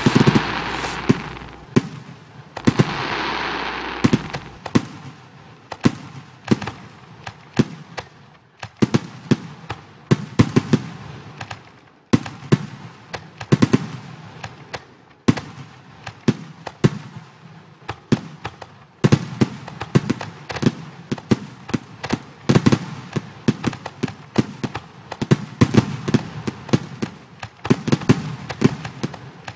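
Simulated fireworks sound effects from a fireworks display program: a fast, uneven string of sharp bangs, several a second, with a crackling fizz in the first few seconds.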